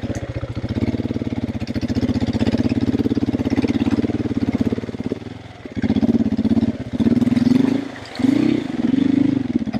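KTM 450 EXC's single-cylinder four-stroke engine pulling under load, with the clutch slipped and the throttle opened in surges from about six seconds in. That is too much throttle, nearly breaking the rear wheel loose.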